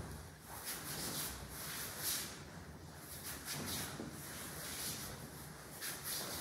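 A series of soft rustling swishes about a second apart from a person moving through a jo staff form: the training uniform's fabric, bare feet turning on the mats and the wooden staff swinging.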